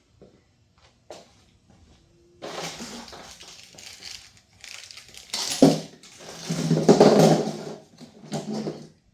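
A rear main bearing cap being fitted over the main studs onto an LS engine block: metal scraping and clunking as it slides down and seats. There is a sharp knock a little past the middle and the loudest stretch of scraping soon after.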